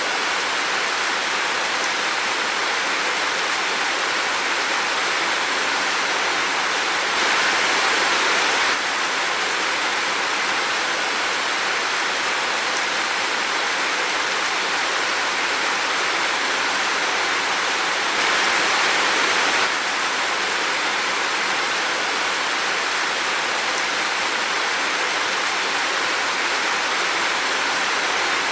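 Heavy rain falling steadily, a dense even hiss that grows briefly louder twice, about a quarter of the way in and again about two-thirds through.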